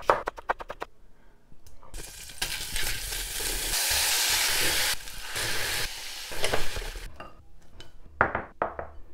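Kitchen knife chopping cucumber on a wooden cutting board in quick strokes, then food sizzling as it fries in a saucepan for several seconds, loudest in the middle, followed by a couple of light knocks as bowls are handled near the end.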